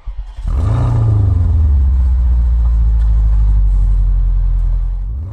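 Vehicle engine running with a heavy low rumble, rising briefly in pitch about half a second in, then holding steady before fading out near the end.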